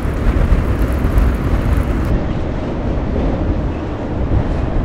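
Wind buffeting the microphone on an open boat: a steady, rumbling noise with no distinct tones.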